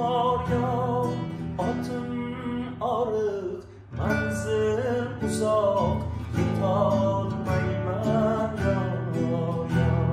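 A classical nylon-string guitar played under a man singing a drawn-out, wordless-sounding melody. There is a short drop in the sound about three and a half seconds in, and then the song carries on.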